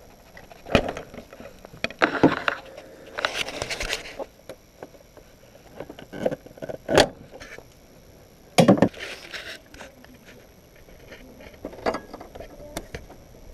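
Hand tools and metal car parts clinking and knocking as someone works on a car, with a rattling scrape about three seconds in and a heavier thud near nine seconds.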